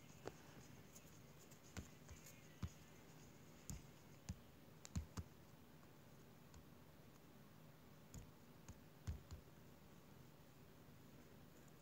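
Faint, irregular taps on a tablet's touchscreen while drawing, over quiet room tone with a low hum.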